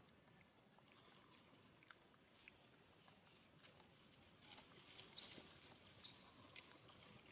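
Near silence, with faint scattered clicks and crackles that come more often in the second half.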